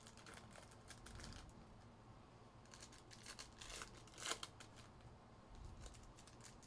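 Faint crinkling and tearing of foil trading-card pack wrappers being opened and handled, with a sharper crinkle a little after four seconds.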